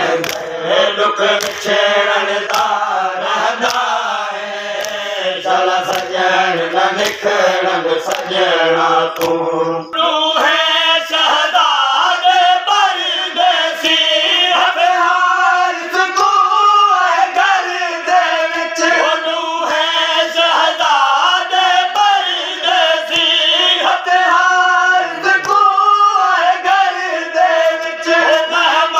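A group of men chanting a Shia noha (lament) together, with evenly spaced chest-beating slaps (matam) keeping time. About ten seconds in the lower voices drop out and the higher chanting carries on.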